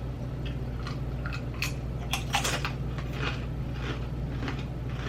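Mouth crunching and chewing dill pickle tortilla chips close to the microphone, with crisp crackles about twice a second.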